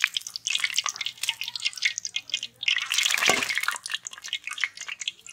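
Hot oil sizzling and crackling as chicken-stuffed chilli bajjis deep-fry in a kadai, a dense stream of fine pops, with a louder, fuller surge of sizzling about three seconds in.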